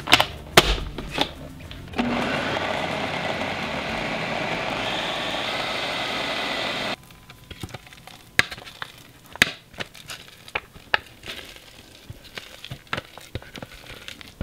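Food processor running for about five seconds, grinding a thick bean, oat and walnut sausage mixture, then cutting off abruptly. Scattered clicks and knocks come before and after it.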